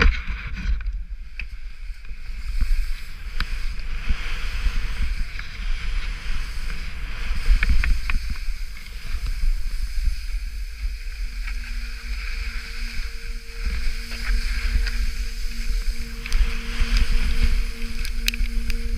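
Skis scraping and hissing down a steep snow couloir, with wind buffeting the action camera's microphone as a constant low rumble. A few short clicks and knocks come from ski and pole contact along the way.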